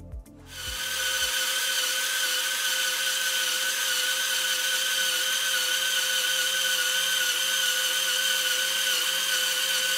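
Lego-brick model of a 42-cylinder, three-crankshaft Napier Deltic engine running, its drive and plastic gear train making a steady high whir with a constant pitch. The whir starts about half a second in.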